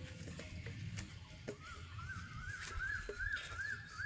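A bird calling in a quick repeated series of short rising-and-falling notes, about two or three a second, starting about a second and a half in, over a low outdoor rumble and a few soft knocks.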